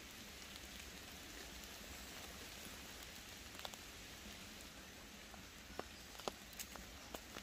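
Soft, steady hiss of rain falling in woodland, with a few sharp taps in the second half.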